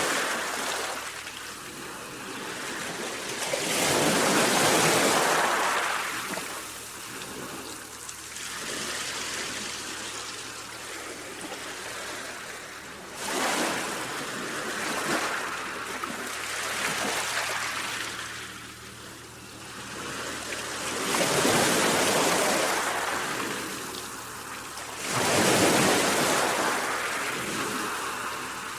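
Sea waves, the surf swelling and fading in a surge every few seconds.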